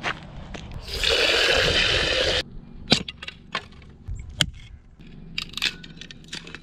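Firewood being split into kindling: a series of sharp knocks and wood cracks, with sticks clattering down. Before them comes a rushing noise lasting about a second and a half.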